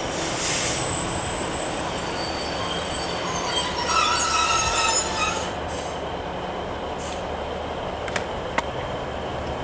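Sprinter-type diesel multiple unit at the platform, its underfloor diesel engine running with a steady low hum. Near the middle a high metallic squeal from the train's running gear rises over it for about two seconds. Two short sharp clicks come near the end.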